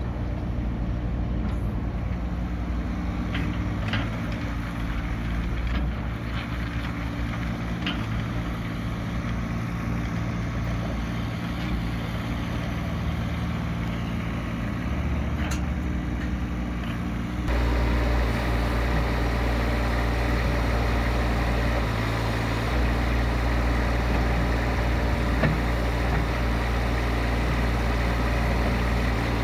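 Stag SE26-Z mini excavator's Kubota 25 hp diesel engine running steadily while the boom and bucket are worked, with a few light clanks in the first half. About two-thirds of the way through, the engine suddenly becomes louder and closer.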